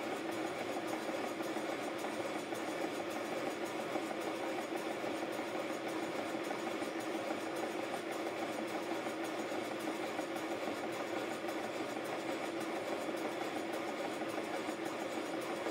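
A 5-inch gauge GWR 14XX model steam locomotive running on a set of rollers, its wheels and coupling rods turning with a steady, even mechanical running sound.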